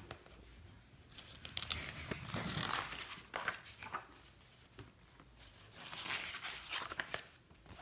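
Pages of a picture book being flipped and turned by hand, paper rustling in two spells: about a second in, and again near the end.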